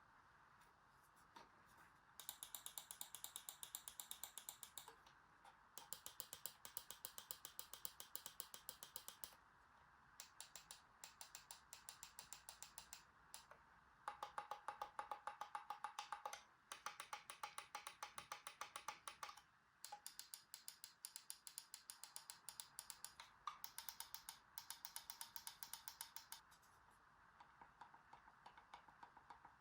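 Gaming mouse buttons clicked rapidly, about seven clicks a second, in bursts of a few seconds with short pauses between.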